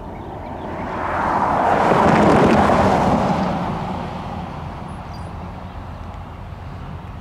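A car driving past on the road, its tyre and engine noise rising, loudest about two seconds in, then fading away.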